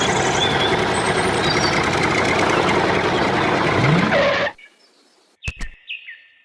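Tractor engine running steadily, then cutting off suddenly about four and a half seconds in. A few sharp clicks and a brief high tone follow in the quiet.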